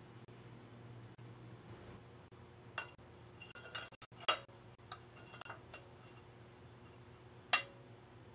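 Scattered light metallic clicks and clinks from bicycle headset parts, the greased front fork bearings and the fork, being handled and fitted into the frame's head tube. The sharpest come about four seconds in and near the end, over a faint steady hum.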